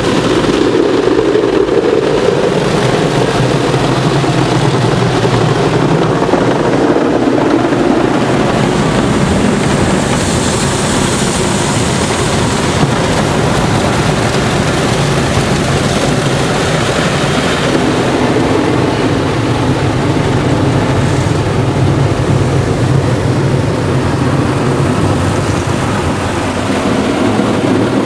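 Rotating brushes of an IMO tunnel car wash scrubbing over the car while water sprays on the body, heard from inside the cabin: a loud, steady noise.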